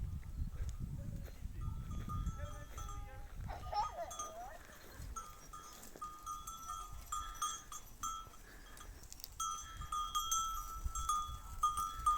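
Bells on a flock of sheep clanking on and off, with one wavering sheep bleat about four seconds in. A low rumble fades out over the first few seconds.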